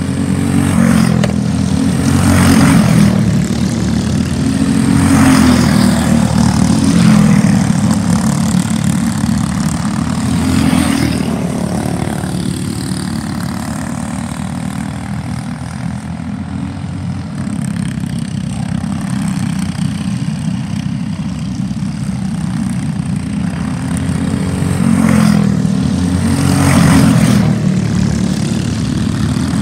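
Pack of Briggs & Stratton LO206 four-stroke single-cylinder racing karts running at race speed, their engines swelling and fading as they pass close by several times. There is a quieter spell in the middle while the karts are farther away around the track.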